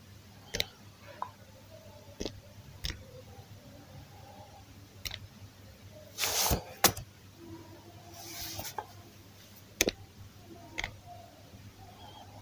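Scattered, irregular soft clicks and taps of typing on a tablet's on-screen keyboard, with a brief rushing hiss about six seconds in.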